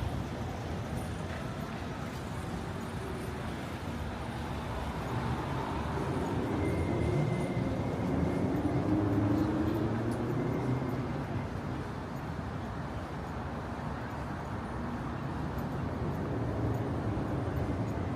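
Road traffic noise, with one motor vehicle passing: its engine rumble grows louder about seven seconds in and fades after about ten seconds.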